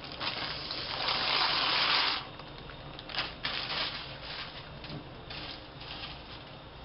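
Dry tube pasta poured into a pot of boiling water: a loud rush of pouring and splashing for about two seconds, then several shorter splashes and rustles as the last pieces go in.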